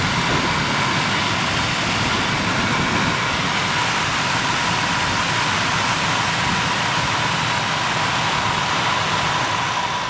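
Suzuki Grand Vitara heater blower motor and fan running at high speed: a steady rush of air with a steady whine. The motor has just been rebuilt with a new commutator and brushes.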